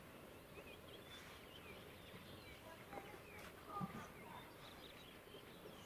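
Faint outdoor quiet with small birds chirping, many short calls scattered throughout, and one brief louder low sound about four seconds in.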